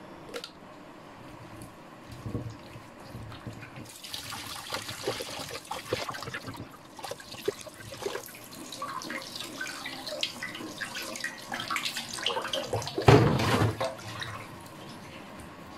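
Tap water running into a stainless steel sink while hands rinse and splash small pabda fish, with small clatters. It starts about four seconds in. Near the end comes a louder splash and pour as the water is tipped off the dish.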